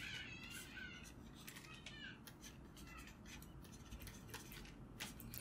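Faint scratching and squeaking of a stylus drawing strokes on a tablet screen, in short irregular strokes.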